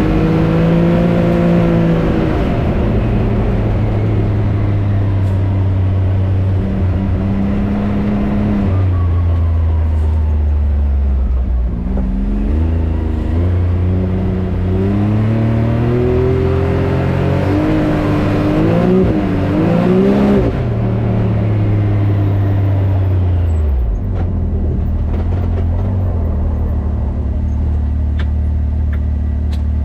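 Can-Am Maverick X3 Turbo RR's turbocharged three-cylinder engine running under way, its note dropping and climbing again several times as the throttle changes, with a wavering rise about twenty seconds in.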